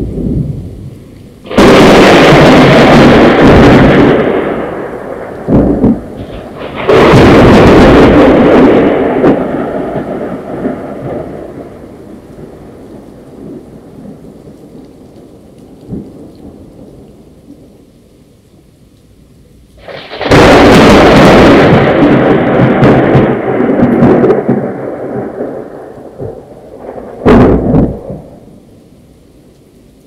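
Thunder in a thunderstorm with rain: three loud thunderclaps, about 2, 7 and 20 seconds in, each rumbling away over several seconds, and a shorter clap near the end. Steady rain falls between them.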